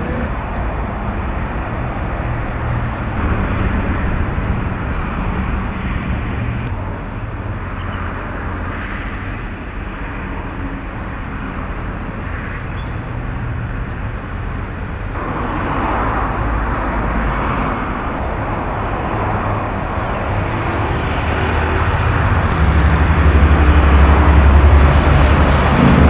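Outdoor traffic noise: a steady hiss of passing road traffic, with a low engine rumble swelling and growing louder over the last few seconds as a vehicle approaches.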